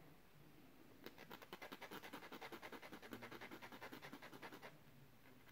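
A tiny cut lock-pin wafer rubbed quickly back and forth on a diamond-coated needle file, a faint rapid rasping of about eight strokes a second that starts about a second in and stops shortly before the end. The file is taking off the burr left from cutting the wafer.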